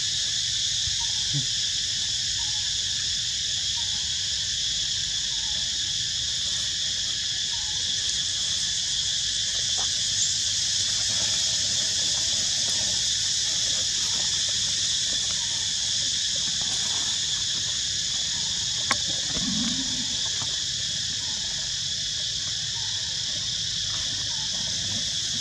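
Steady, high-pitched insect chorus, with a faint chirp repeating about once a second underneath and a single sharp click a little before twenty seconds in.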